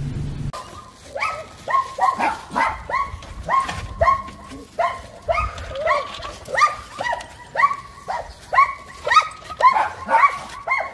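Dogs barking over and over, about two to three barks a second.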